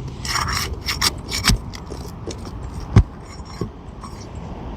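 A pry tool scraping and rubbing against asphalt shingles as it is worked under a sealed shingle to find and pop out a roofing nail, with a sharp knock about three seconds in.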